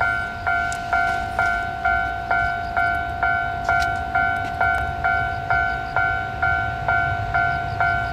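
Railway level-crossing alarm ringing an even, one-pitched clang, a little over two strikes a second, each strike fading before the next. Under it is a steady low rumble.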